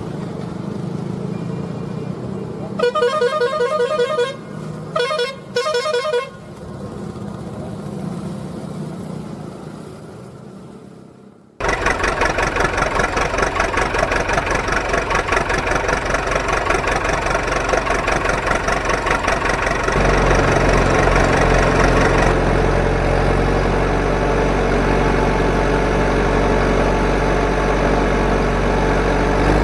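Truck horn sound effect giving two warbling blasts a few seconds in, over a low hum. About twelve seconds in, a loud truck engine sound effect cuts in abruptly and runs with a fast, even pulsing, with a deeper rumble joining about eight seconds later.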